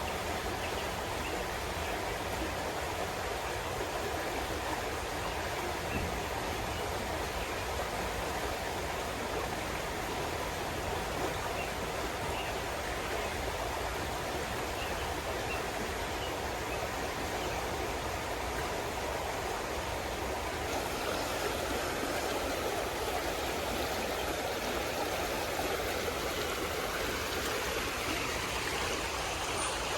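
Steady rushing of running water, like a flowing stream.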